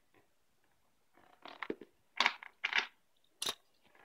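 Plastic toy playset pieces being handled. A few short scraping rustles and clatters follow a quiet start, with a sharp click about three and a half seconds in.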